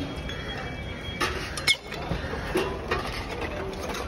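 Stainless steel plates and utensils clinking and clattering as they are handled, with a few sharp strikes spread through and one brief ringing clink near the middle, over steady background noise.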